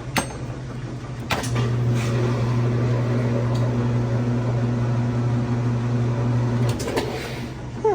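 Old Whirlpool direct-drive washer's motor running with a steady electric hum. It starts with a click about a second and a half in and cuts off near the end, followed by a few sharp clicks and knocks.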